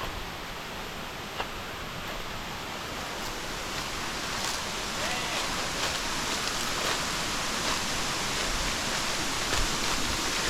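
Steady rush of flowing river water, growing slowly louder, with a few faint taps.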